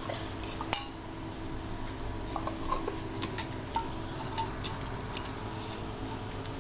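Hand kitchen-work sounds as oiled wheat chapati dough is handled and folded on a counter: scattered light clicks and clinks, a sharper one about a second in, over a steady low hum.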